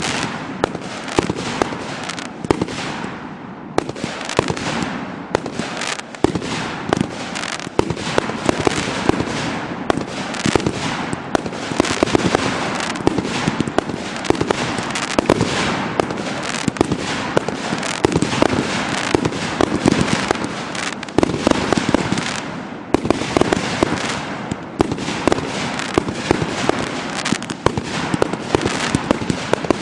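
Consumer aerial fireworks firing from ground tubes and bursting overhead in a near-constant stream of bangs, pops and crackles. There are brief lulls about four seconds in and again about 23 seconds in.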